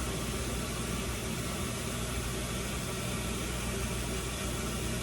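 Steady low hum with an even hiss, unchanging throughout, with no distinct knocks or clicks.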